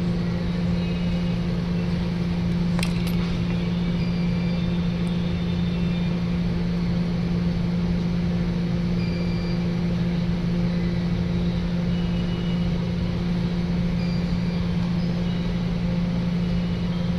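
Steady deep electrical hum from a motor with a bad capacitor, one strong buzzing tone with fainter higher tones above it, unchanging throughout.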